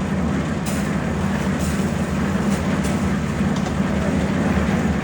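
Steady drone of a small engine running at constant speed, with a few faint clicks over it.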